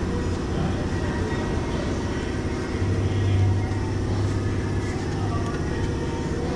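Steady low mechanical drone of a background machine, with a constant hum that swells a little about halfway through, and a few faint small clicks.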